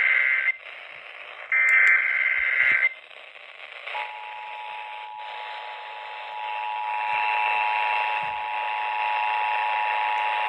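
Emergency Alert System tones received over radio with a background hiss. Two bursts of the screeching digital data header are heard, the first ending about half a second in. About four seconds in, the steady two-tone attention signal starts and keeps sounding.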